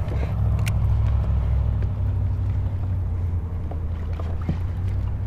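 Steady low rumble and hum aboard a small fishing boat moving slowly along the bank, with a few faint light clicks from the rod and reel as a crankbait is cast and retrieved.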